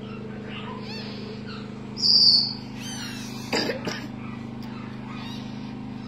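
Parrot chick calling: one loud, high, steady squeak about two seconds in and a shorter sharp call about halfway through. Under it runs a steady low hum.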